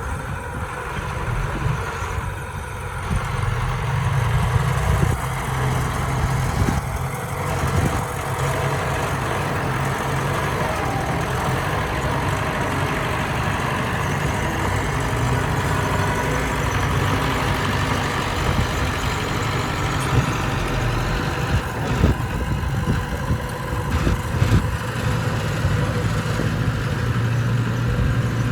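Bulldozer's diesel engine running steadily, with a few short knocks about three quarters of the way in.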